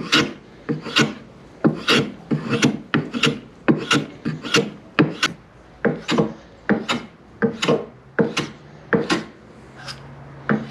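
Hand filing or rasping by hand, with even strokes at about two a second.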